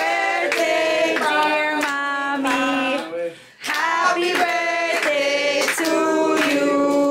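A group of voices singing a birthday song together without accompaniment, in held notes, with a short breath about three seconds in.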